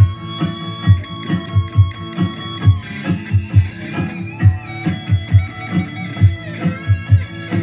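Stratocaster-style electric guitar playing a lead line, with one note held for nearly three seconds at the start and another held note in the middle, over an accompaniment with a steady low thumping beat.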